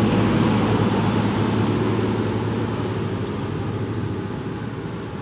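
An engine running with a steady low hum that slowly fades away.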